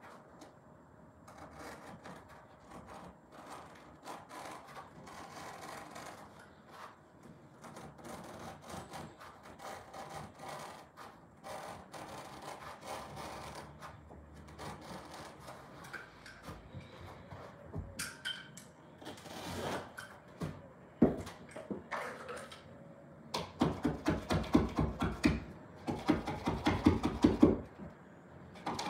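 Carpet being cut in along the base of a wall: rubbing and scraping of the carpet pile and backing as it is worked into the edge, then, after about twenty seconds, fast runs of rasping strokes as a blade saws through the carpet.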